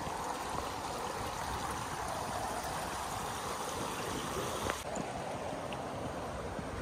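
Steady sound of running water by an outdoor swimming pool, with one faint click about two-thirds of the way in.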